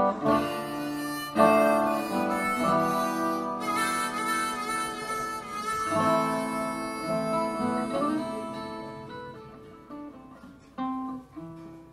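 Harmonica playing held, sustained notes over acoustic guitar as a song ends. After about eight seconds the harmonica stops and the music dies away, with a few last guitar notes.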